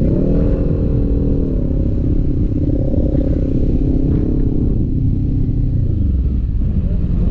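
Sport motorcycle engine under way: it revs up sharply at the start, eases back in pitch about a second and a half in, and drops again near the end. Steady wind and road rumble run underneath.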